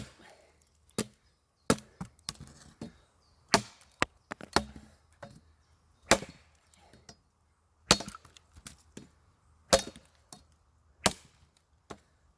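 An Ontario Bushcraft machete chopping into wood: about ten sharp, separate strikes at an uneven pace, one every second or two.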